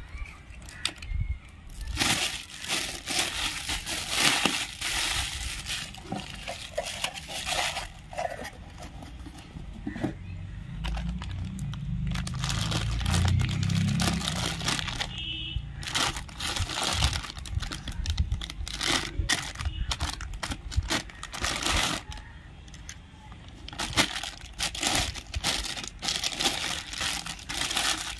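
Clear plastic bags crinkling and rustling as they are handled and opened to unwrap toy tractors, in irregular crackly bursts. A low rumble joins in for a few seconds about halfway through.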